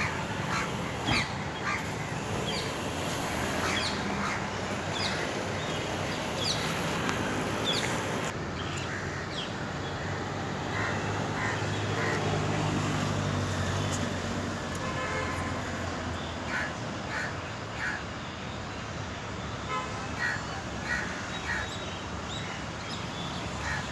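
Busy outdoor background noise, with short high calls scattered through it and a low hum that swells in the middle.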